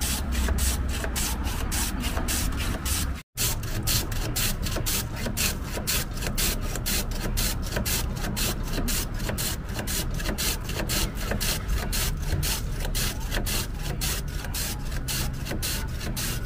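A block of ice being shaved by hand on a traditional wooden shaved-ice plane: rapid rhythmic rasping strokes, about four a second, as the ice is pushed back and forth over the blade. A brief break comes about three seconds in.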